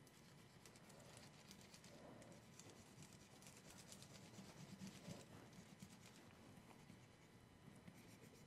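Faint scratching and rubbing of a water-soluble marker tip being worked over a textured aluminium-foil printing plate, in short irregular strokes.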